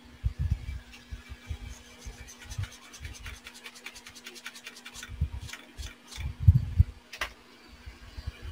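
Scratching and rubbing of hand tools being worked on a laptop motherboard under the microscope. A quick run of fine, even ticks comes in the middle, and dull low knocks from handling are heard throughout.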